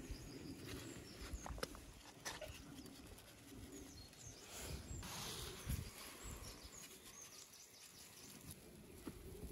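Faint, soft handling of raw lamb tail fat on a wooden tray as salt is rubbed into its cuts, with small clicks and a brief hiss of salt sprinkled over it about halfway through.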